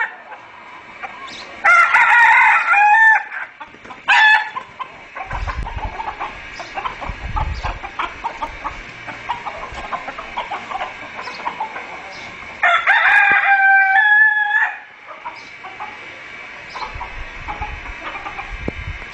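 Roosters crowing, one long crow about two seconds in and another around thirteen seconds in, with a shorter call about four seconds in. Between the crows, chickens cluck and scuffle.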